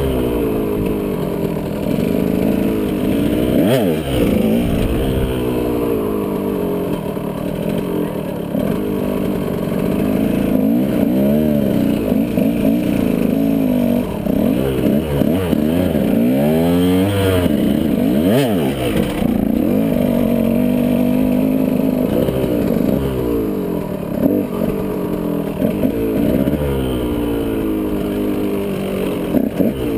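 KTM 125 SX two-stroke single-cylinder dirt bike engine being ridden hard, its pitch rising and falling over and over as the throttle is opened and shut.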